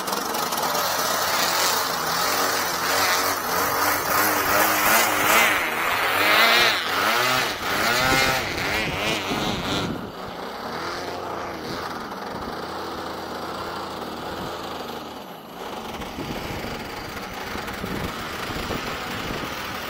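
Electric RC model Beechcraft Bonanza flying by, its motor and propeller whine rising and falling in pitch as it passes, loudest in the first half, then steadier and quieter as it flies farther off.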